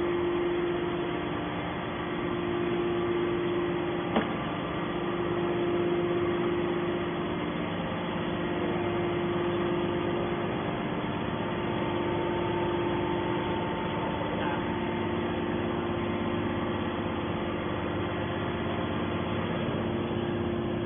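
Hydraulic metal baler's power unit running with a steady hum, with one short knock about four seconds in.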